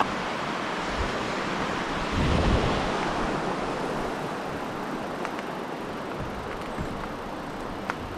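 Steady rushing of fast-flowing stream water, swelling louder about two seconds in, with a few small clicks near the end.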